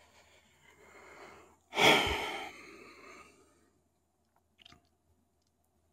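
A person breathing out close to the microphone: a soft hiss, then a louder gusty exhale, like a sigh, a little under two seconds in that fades over about a second. A faint click follows near the end.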